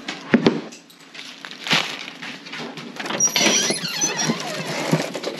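Handling noise from carrying kitchen scraps and leftover bread: a few sharp knocks, then crinkling and crackling as a screen door is pushed open, with a brief high squeak about three seconds in.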